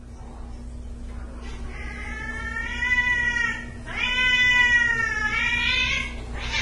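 Cat yowling in two long, wavering caterwauls, one after the other, the first starting about a second and a half in: the drawn-out threat calls of cats fighting.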